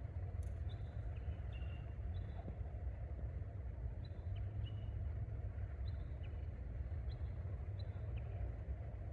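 Scattered short, thin whistled songbird notes, single or in pairs that step down in pitch, over a steady low rumble.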